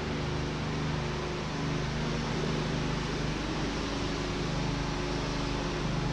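Steady machine hum over an even hiss, with no distinct events.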